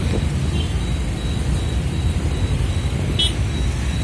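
Steady road-traffic and vehicle rumble heard while travelling along a busy city road, with a short high beep about three seconds in.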